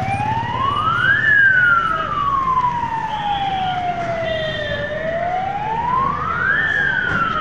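Fire engine siren wailing: the pitch rises over about a second and a half, then falls slowly over about three and a half seconds, and the cycle repeats once, over a low rumble.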